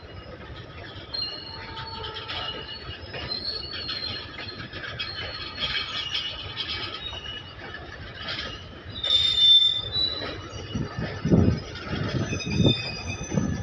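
Goods wagons of an Indian Railways freight train rolling past, their wheels squealing in high tones that come and go over a steady rolling noise. A few low clunks sound near the end.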